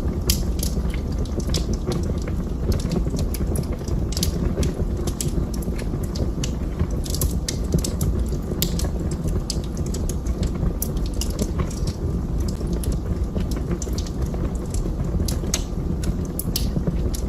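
Fire burning in a fireplace: a steady low rumble of the flames with frequent sharp, irregular crackles and pops.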